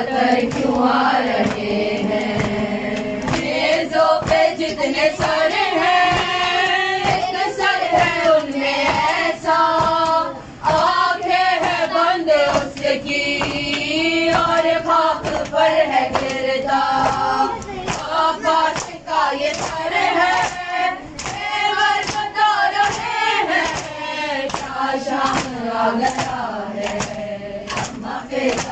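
Women's voices chanting an Urdu noha, a Muharram lament, together in a group, with steady beats of matam (chest-beating) keeping time.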